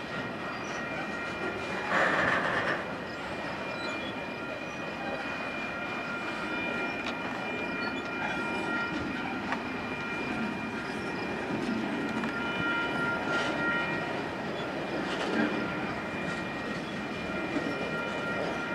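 Intermodal freight train of highway trailers on flatcars rolling past, a steady rumble of cars on the rails with thin steady high tones over it. A brief louder clatter about two seconds in.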